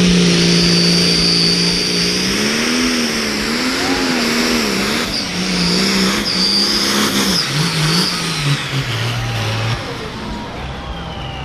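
International super stock pulling tractor's turbocharged diesel engine at full throttle under load, its pitch wavering up and down with a high whine on top. About eight seconds in the engine winds down, and the sound falls away near the end as the pull ends.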